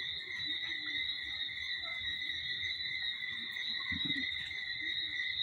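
Steady, unbroken high-pitched chorus of insects, with a faint low rumble underneath.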